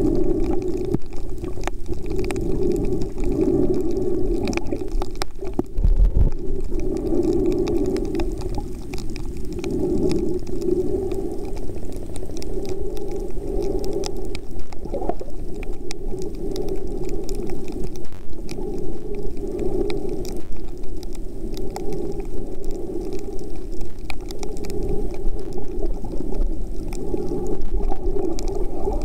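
Muffled rushing and sloshing of shallow reef water heard underwater, swelling and ebbing, with faint scattered clicks throughout and a low thump about six seconds in.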